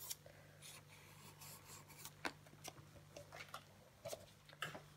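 Faint scratching of a pencil on paper as it traces a circle, with a few light taps.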